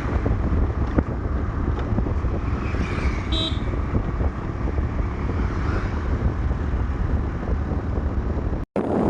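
A vehicle driving along a road, with steady low rumble and wind noise on the microphone. A short horn toot sounds about three seconds in.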